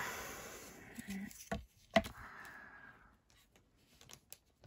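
Clear plastic T-ruler being set down and positioned on a card: a light click and then a sharp plastic click about two seconds in, followed by a short scraping slide and a few faint taps.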